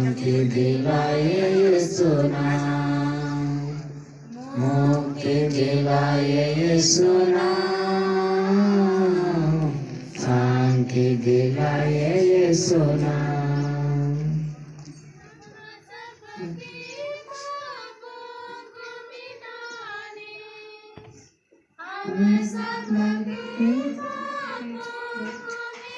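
A group of people singing a slow devotional song together in unison. About 15 s in the singing turns softer and higher-pitched, breaks off briefly a little after 21 s, then resumes.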